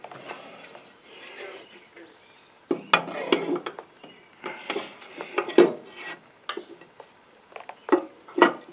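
Cast aluminium crankcase cover of a Kohler Command Pro V-twin engine being fitted onto the block over the crankshaft and camshaft, a snug fit on the crank: a string of light metallic clinks, taps and knocks, beginning about three seconds in.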